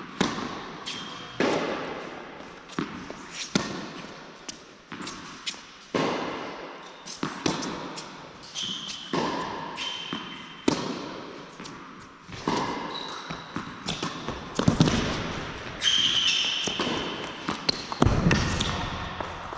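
Tennis rally on an indoor hard court: a serve, then racket strikes and ball bounces every second or so, each knock echoing in the large hall. Short high squeaks of sneakers on the court come between shots.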